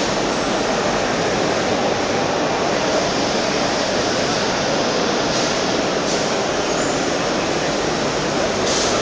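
Ambience of a large, busy exhibition hall: a loud, steady, even wash of noise in which distant voices blend together.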